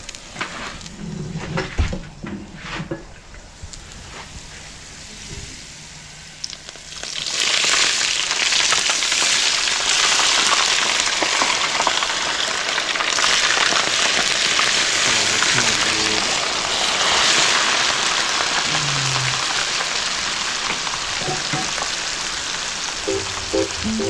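Garlic crackling quietly in hot oil in a pan, then about seven seconds in a sudden loud sizzle as the hot garlic oil is poured over raw bluefin trevally sashimi, flash-cooking its surface; the sizzle keeps on steadily.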